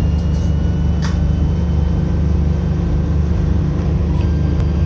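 Twin DMH17H diesel engines of a KiHa 52 railcar running, a steady low rumble heard inside the passenger cabin, with a light click about a second in.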